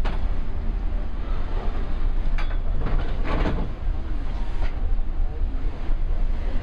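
Wind buffeting the microphone on a ship's balcony, a steady low rumble with the wash of the sea, and a couple of short clatters from the table being set, about two and a half and three and a half seconds in.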